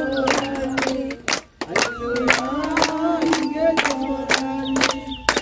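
A group of women singing a devotional song together, clapping in time about three claps a second; the singing and clapping break off briefly about a second and a half in.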